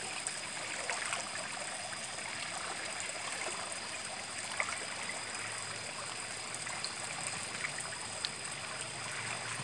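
River water flowing steadily, an even rushing hiss with a few faint ticks.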